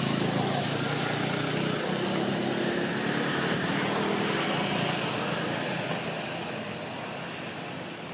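A motor engine running and slowly fading away, over steady outdoor background noise.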